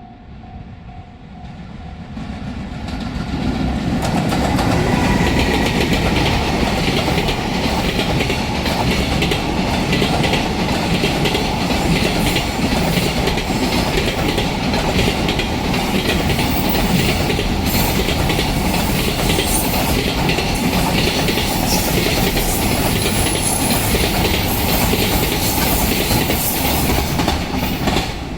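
Train passing close by at a level crossing: the noise builds over the first few seconds, then the wheels clack steadily over the rail joints for more than twenty seconds before the last cars clear and the sound drops away.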